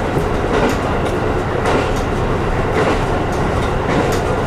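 JR Hokkaido KiHa 150 diesel railcar heard from inside the driver's cab while running: a steady rumble of engine and wheels on the rails, with the wheels clicking over rail joints every second or so.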